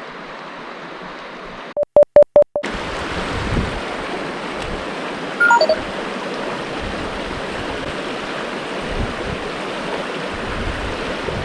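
Mountain stream rushing steadily. About two seconds in, four quick, loud electronic beeps with dead silence between them, after which the stream is louder; a short falling tone a few seconds later.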